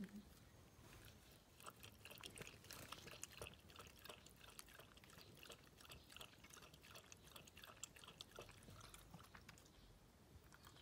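Small dog lapping water from a can, a quick faint run of wet clicking laps that starts about a second and a half in and stops about a second before the end.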